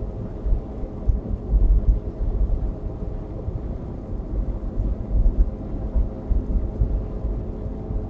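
Cabin noise of a 2016 Nissan Versa cruising at highway speed: a steady low road and tyre rumble that swells unevenly.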